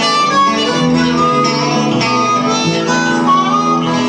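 Live band music: a harmonica playing held notes over guitars, recorded on a tinny cell phone.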